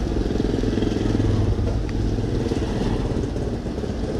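Motorcycle engine running in street traffic, loudest between about one and two seconds in.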